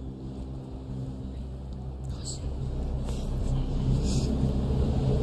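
Low suspense drone from the studio sound system, sustained low tones swelling steadily louder: the tension bed that builds before the winner's name is announced.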